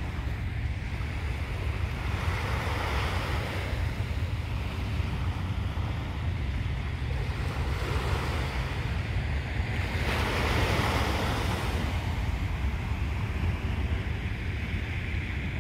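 Sea waves washing ashore, the hiss swelling and fading a few times and loudest about ten seconds in, over a steady low rumble of wind on the microphone.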